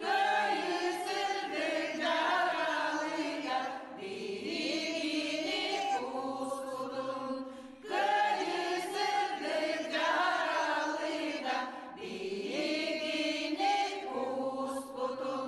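A group of voices singing together, in phrases that break off about every four seconds.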